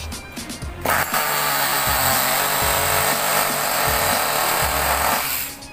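Loud, steady mechanical whirring that starts about a second in and cuts off near the end, over background music with a regular beat.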